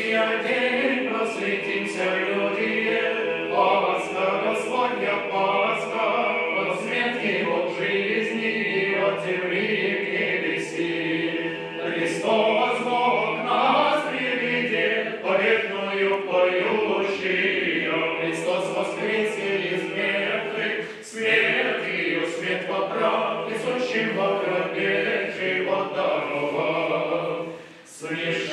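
Background music: a choir singing Orthodox church chant, with short breaks between phrases.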